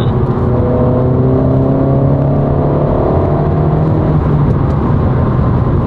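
Honda Civic's 1.5-litre turbocharged four-cylinder pulling hard in third gear under boost, heard from inside the cabin with the intake's induction noise; the engine note climbs steadily and the pull ends about four seconds in.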